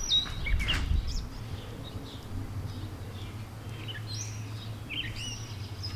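Small birds chirping in short, rising and falling calls, heard over a steady low hum.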